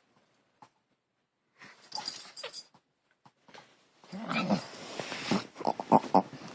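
A dog making a weird noise: a short burst about two seconds in, then a longer rough, noisy stretch from about four seconds in, broken into quick pulses near the end.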